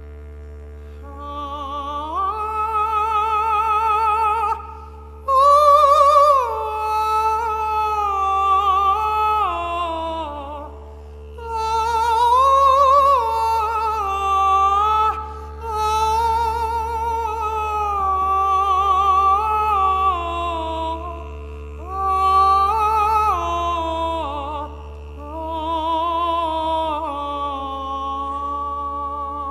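Countertenor singing a slow, ornamented Turkish Sufi melody with wide vibrato, in long phrases broken by short pauses for breath. Under the voice a didgeridoo holds one steady low drone throughout.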